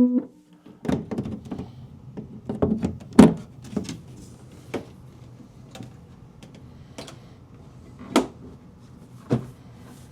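Knocks, taps and a few sharp clicks of parts being handled on a Wurlitzer 200A electric piano, over a low steady hum. A played note dies away at the very start.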